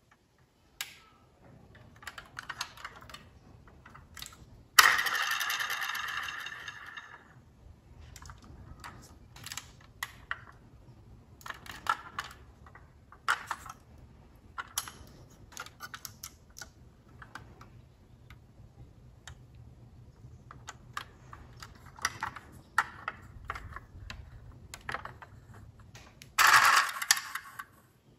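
A blue die-cast metal Ford GT model car being handled: irregular small clicks and taps as it is turned in the hands and its doors and engine cover are swung open. A louder burst about five seconds in fades over two seconds, and another comes near the end.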